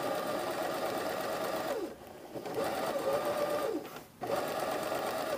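Electric domestic sewing machine stitching a seam in three short runs, stopping twice briefly. Its motor whine climbs in pitch as each run gets up to speed and drops as it slows to a stop.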